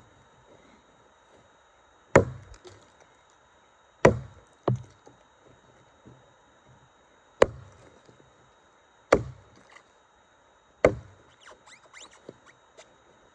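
Tuatahi camp axe on a beech racing handle chopping into a redgum log: five heavy strikes every two to three seconds, each a sharp crack over a low thud, with a lighter knock just after the second. A scatter of light ticks follows near the end.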